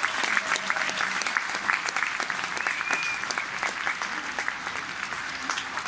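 Arena audience applauding steadily, with individual nearby claps standing out as sharp separate cracks.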